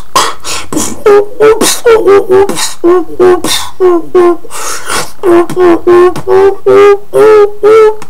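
Human beatboxing: sharp mouth-made percussion hits in a steady rhythm, woven with a pitched, wavering hummed tone that sounds like a flute or synth line.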